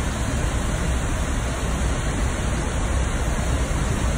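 Minnehaha Falls pouring into its plunge pool: a loud, steady rush of falling water with a deep rumble underneath.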